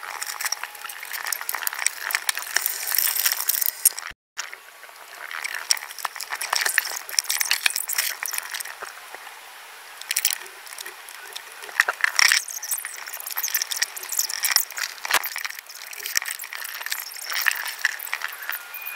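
Kitchen clatter as groceries are put away: many small clinks and knocks of glass, crockery and packaging, with rustling, broken by a brief cut to silence about four seconds in.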